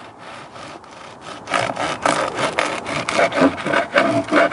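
Serrated bread knife sawing through a crusty loaf: a quick run of rasping strokes that begins about a second and a half in.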